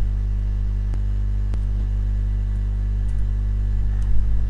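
Steady low electrical mains hum, with two faint clicks about a second and a second and a half in, typical of mouse clicks.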